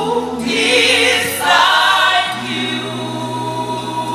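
Gospel choir singing held chords of a worship song, swelling brighter about a second in, with a steady low note from the accompaniment coming in about halfway through.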